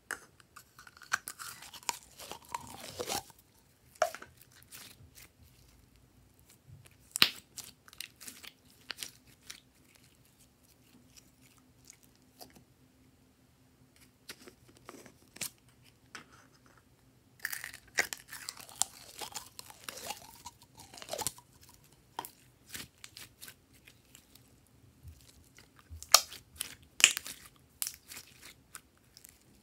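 Glossy purple slime being handled in and pulled out of a plastic jar by hand, giving clusters of sticky crackles and sharp clicks with quiet gaps between.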